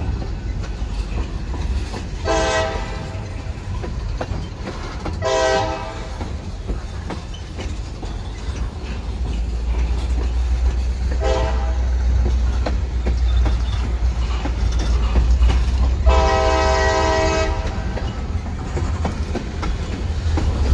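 Freight train of tank cars and covered hoppers rolling past with a steady low rumble and wheel clatter. A diesel locomotive horn sounds three short blasts spaced several seconds apart, then one longer blast about two thirds of the way in.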